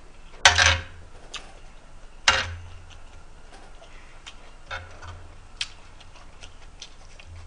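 Metal spoon scraping and clinking on a griddle pan as fried rice is scooped up: a few short, sharp scrapes and many light ticks.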